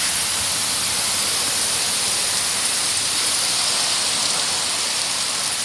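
Heavy downpour of rain, falling steadily as a dense, even hiss.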